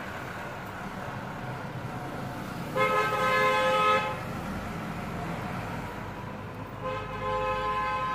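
Vehicle horn honking twice: a loud, steady note of about a second, then a fainter, longer one near the end, over a steady background of traffic noise.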